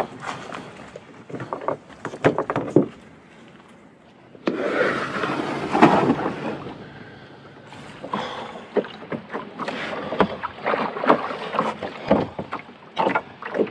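Paddling a canoe: a run of short knocks and splashes from the paddle in the water and against the hull, with a longer rush of noise about four and a half seconds in that lasts about two seconds.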